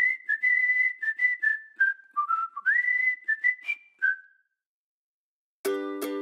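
A whistled tune of held and quick notes that stops about four seconds in. After a short silence, plucked-string music starts near the end.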